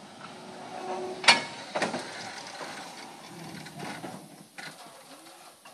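Open electric trolley car coming to rest, its metal running gear clicking and rattling, with a sharp clank about a second in and another half a second later.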